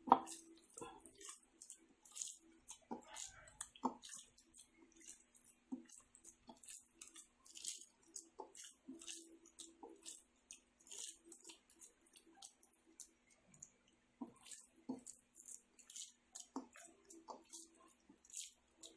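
A bare hand kneading a wet ground beef burger mixture in a plastic bowl: faint, irregular squelching with many small sticky clicks.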